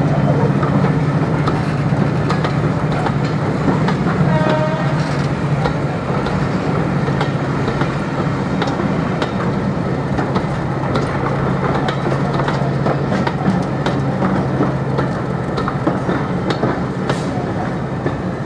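Passenger coaches rolling past at low speed, their wheels clicking over the rail joints, over a steady low diesel drone that drops away about fifteen seconds in. A short high tone sounds once about four and a half seconds in.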